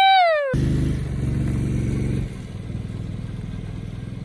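A brief shout falling in pitch, then, after an abrupt cut, a small utility vehicle's engine running at a steady pitch, louder for about the first two seconds and then dropping somewhat.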